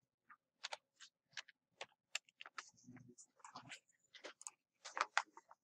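Faint, irregular clicks of a computer mouse and keyboard, a dozen or so sharp clicks spaced unevenly.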